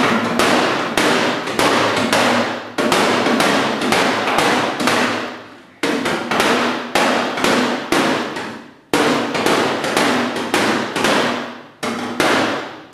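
Hammer striking the sheet-metal body panel of a Toyota Land Cruiser, working out the last low spot of a dent. The blows come about two a second, each with a short metallic ring, in three runs with brief pauses.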